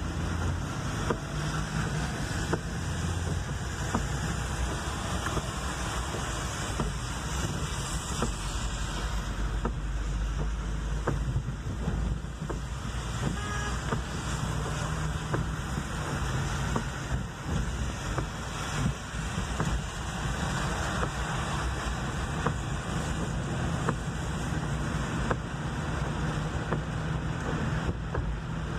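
Steady road noise from inside a car driving on rain-soaked streets: wet tyres on pavement over a low engine hum.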